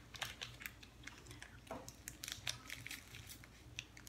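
Faint, scattered crinkles and clicks of a plastic snack wrapper being handled as a crumbly puff pastry is broken out of it and bitten.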